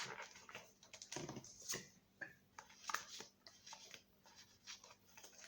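Faint, scattered soft clicks and rustles of Pokémon trading cards being handled and shuffled.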